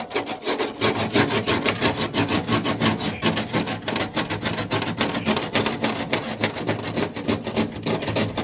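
Fast, continuous scraping and rubbing, many strokes a second, with no speech over it.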